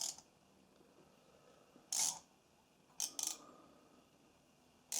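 Thermostat dial of a clothes iron being turned back and forth, giving short sharp clicks: one about two seconds in, a quick pair about three seconds in, and one near the end. Each click is the thermostat switch opening or closing.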